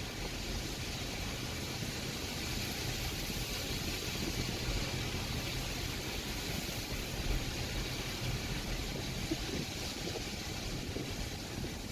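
Steady outdoor street ambience: a low rumble under an even hiss, with no distinct events.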